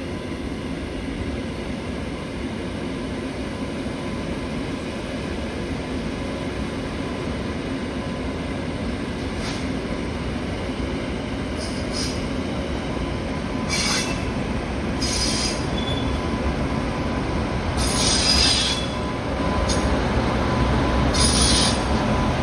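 Goods train hauled by a pair of Indian Railways electric locomotives coming out of a tunnel and passing close by: a steady low rumble that slowly grows louder. Short high-pitched wheel squeals break in several times from about ten seconds in, more often in the second half.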